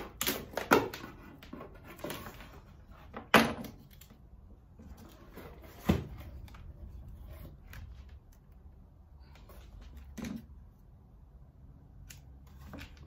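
Handling noise: a few sharp knocks and clicks, the loudest about three and a half seconds in, with light rustling between them, as wire and tools are handled while wiring a control panel.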